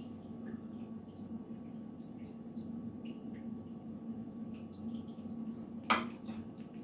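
Thin tomato sauce in a frying pan of chicken breasts bubbling and popping as it heats toward a boil, a steady patter of small ticks. About six seconds in comes a single sharp clink of a metal fork.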